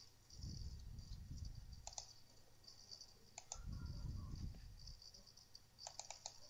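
Faint computer mouse clicks: a double click about two seconds in, another about a second and a half later, and a quick run of clicks near the end. Soft low rumbles come and go between them.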